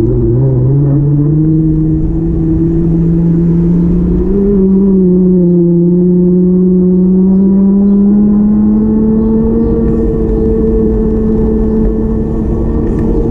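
Motor vehicle engine running, its note climbing gradually over about ten seconds and then holding steady, over a steady low rumble.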